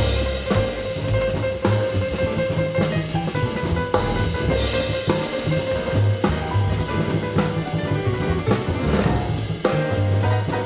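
Live jazz piano with bass and drum kit, the cymbals keeping a steady beat under moving bass notes and piano, played back from a cassette recording of an FM broadcast.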